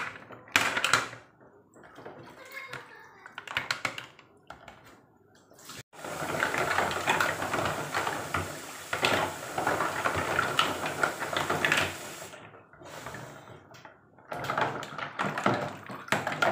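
Mussel shells being scrubbed and knocked together by hand in a plastic basin of water, with irregular clacks and splashing. From about six seconds in to about twelve seconds, a tap runs steadily into the basin over the scrubbing.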